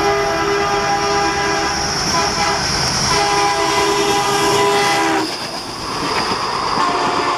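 ALCO WDG 3A diesel locomotive sounding its horn as it passes close at speed, the horn cutting off sharply about five seconds in. It is followed by the rushing, clattering noise of passenger coaches going by on the track.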